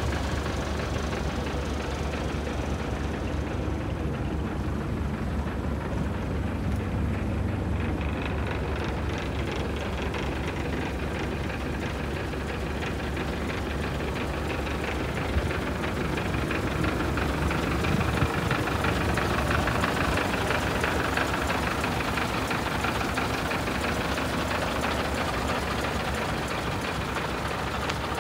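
Scania 143H truck's 14-litre V8 diesel engine idling steadily, with an even diesel knock.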